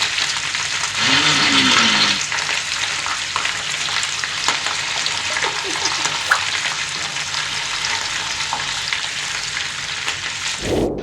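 Sausages sizzling and frying on a hot griddle, a steady crackling hiss that swells louder about a second in.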